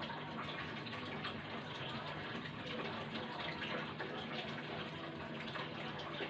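Steady rushing background noise with faint scattered ticks.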